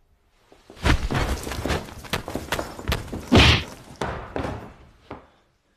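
Slapstick fight sound effect: a rapid flurry of thumps and whacks lasting about four seconds, loudest a little after three seconds in.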